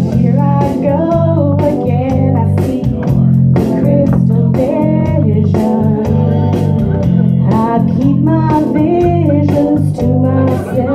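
A woman singing live through a microphone over loud amplified music with guitar and bass.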